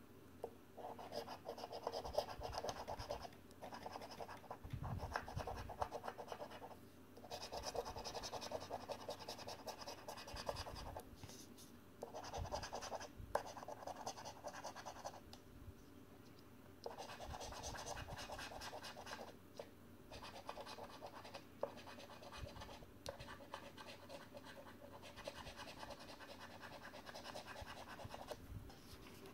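A coin scratching the coating off a paper scratchcard on a wooden tabletop, in bouts of quick back-and-forth strokes a few seconds long with short pauses between.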